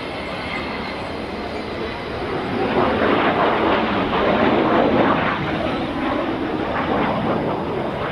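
Avro Vulcan's four Rolls-Royce Olympus turbojets as the bomber flies past: a steady jet rush with a thin high whine at first, swelling about two and a half seconds in to a loud, rough, crackling rumble that eases slightly towards the end.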